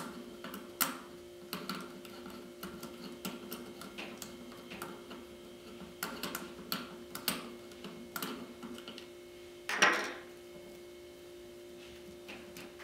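Small irregular clicks and taps of metal and plastic parts as the pistol grip screw is backed out and the grip is worked off an HK416 .22 lower receiver, with a louder scrape about ten seconds in. A faint steady hum sits underneath.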